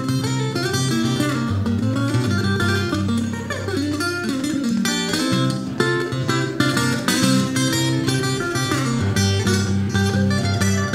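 Acoustic guitar fingerpicked in a blues style: quick picked treble notes over a steady thumbed bass line.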